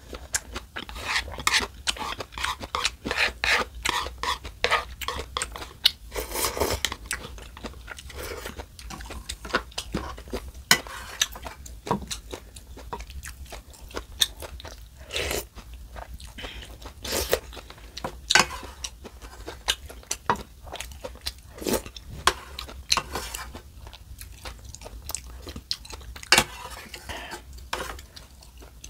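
Close-miked eating of spicy ramen noodles and broth: chewing and slurping, with many short wet mouth clicks, thickest in the first several seconds and sparser after.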